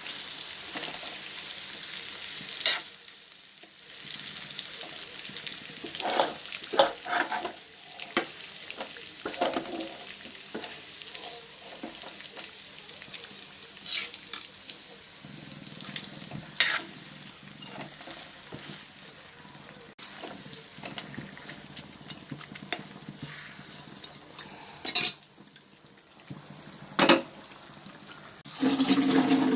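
Chicken frying in a pan with a steady sizzle, stirred with a metal spoon that scrapes and knocks sharply against the pan every few seconds. A louder rush of noise comes right at the end.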